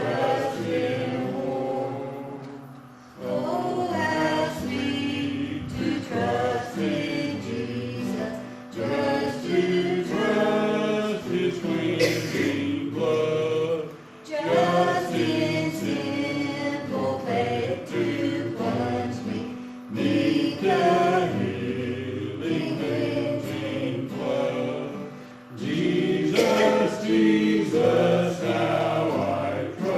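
Choir singing a gospel hymn in phrases, with brief pauses between lines.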